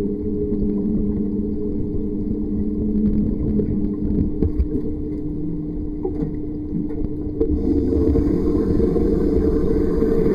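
Underwater ambience in a deep diving pool: a steady low hum with a couple of steady tones. About three-quarters of the way in it turns noisier and hissier.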